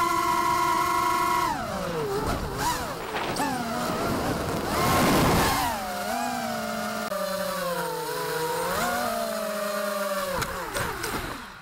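Eachine Falcon 250 quadcopter's brushless motors whining, the pitch gliding up and down as the throttle changes, with a burst of rushing air about five seconds in. Near the end the whine drops in pitch and fades out.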